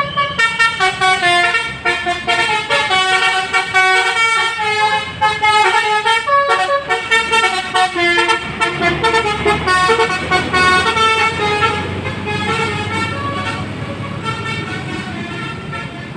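Basuri multi-tone bus air horn (telolet horn) playing a quick melody of short notes that jump in pitch. The notes grow fainter over the last few seconds.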